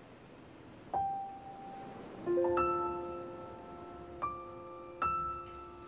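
Slow piano background music. A single note sounds about a second in, then a rolled chord is left ringing, with two more notes joining later.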